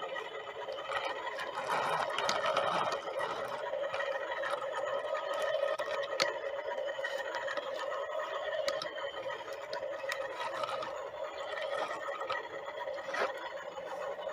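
Small electric motor of a toy construction vehicle running steadily with a steady whine, with a few sharp clicks.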